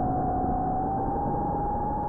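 Propellers and motors of a 4-inch FPV quadcopter humming in flight: one steady tone that rises slowly in pitch as the throttle changes, over a rush of wind and prop wash. The sound is muffled, with no high end.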